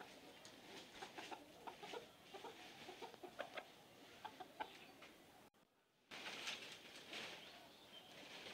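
A white desi rooster clucking faintly in short, scattered calls; the sound drops out briefly a little past halfway.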